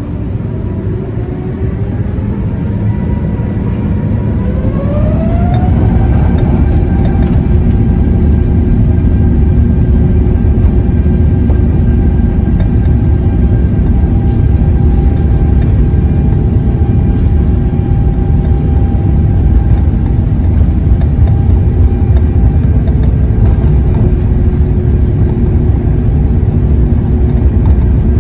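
Rolls-Royce Trent XWB turbofans on an Airbus A350-900 spooling up to normal takeoff thrust, heard from inside the cabin. Several whine tones rise over the first six seconds or so, then hold steady over a loud low rumble as the aircraft rolls down the runway.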